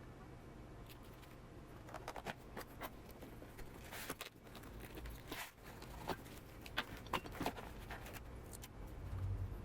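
Faint rustling, scraping and light clicks of a parcel and its packing being handled and opened, starting about two seconds in.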